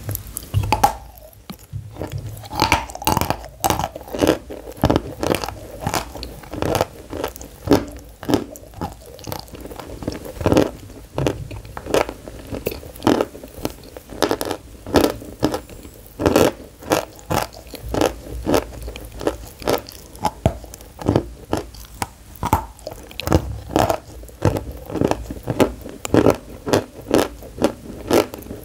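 Close-miked biting and chewing of dry white pressed-chalk bars: a steady run of sharp, dry crunches, about one or two a second.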